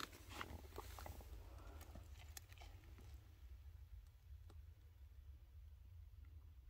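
Near silence: a faint steady low rumble with a few faint clicks and ticks scattered through it, most of them in the first two or three seconds.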